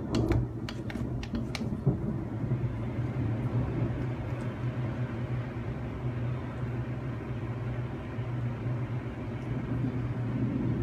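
Thunder rumbling low and steadily after a lightning flash, with a few sharp crackles in the first two seconds, over a constant low hum.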